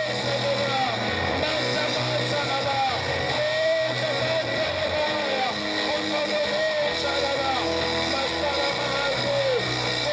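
Live worship music: a voice singing a gliding melody over a steady bass and instrumental backing.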